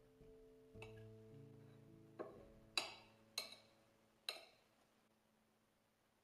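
Soft background music with held notes fading out, and four sharp clinks from about two seconds in, each ringing briefly: a metal spoon tapping a ceramic dessert plate.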